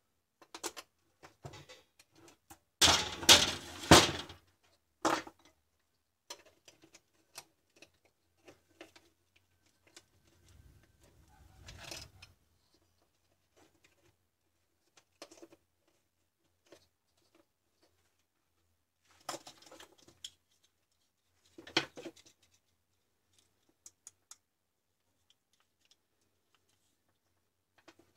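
Handling noise of a dismantled angle grinder's plastic housing, wiring and small tools on a workbench: scattered clicks, taps and short rattles, the loudest cluster about three to four seconds in.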